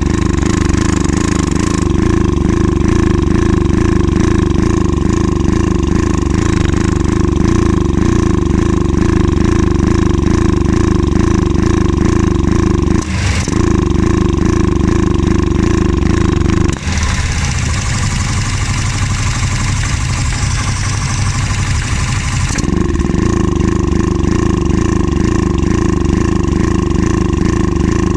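Access Motor AX700 ATV engine running steadily. It dips briefly near the middle, and for several seconds after that its sound changes, then settles back. The machine's owner puts its misfiring and hesitation down to a clogged fuel injector and fuel filter and fuel pump trouble.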